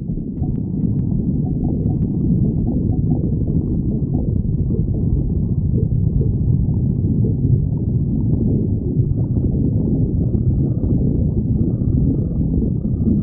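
A person's stomach growling: a continuous low rumble, a little louder after the first second.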